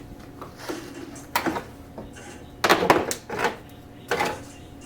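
A run of sharp clicks and knocks, a handful spread over a few seconds and loudest in a quick cluster about three seconds in, as the car's rear bumper cover and its damaged push-pin clips are worked loose by hand.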